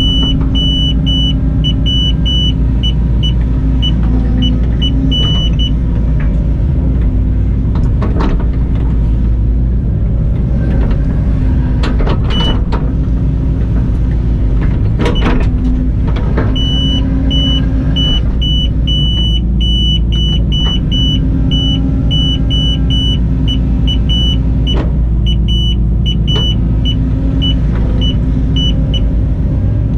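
Hitachi ZX120 excavator's diesel engine running steadily under digging load, heard inside the cab. A high electronic beeping from the machine-control grade guidance repeats for the first few seconds and again through the second half, and a few sharp knocks come in the middle as the bucket works.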